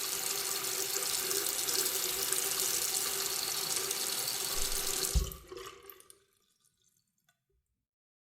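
Faucet water running steadily into a sink, then cut off about five seconds in with a low thump, leaving a few last drips before it goes quiet.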